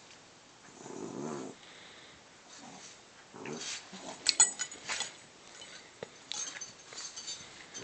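Two small dogs play-wrestling, growling in short bouts, with a few sharp clicks and scuffles about halfway through.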